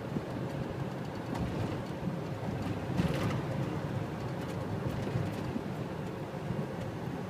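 Steady road and engine noise heard inside a car's cabin while driving on a freeway: a constant low rumble, with a brief louder rush about three seconds in.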